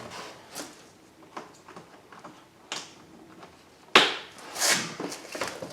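A few faint clicks, then a storage drawer is pulled open with a sharp knock about four seconds in, followed by rummaging and rattling among small hard parts while a replacement panel clip is looked for.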